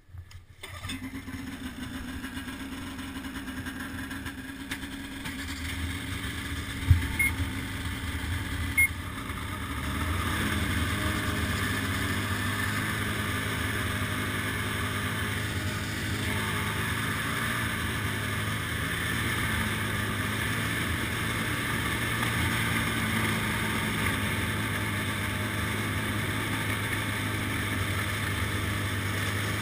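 Ski-Doo snowmobile engines running, quieter at first, with two sharp knocks around seven and nine seconds in. From about ten seconds in the engine note is louder and steady as the snowmobile rides along the trail.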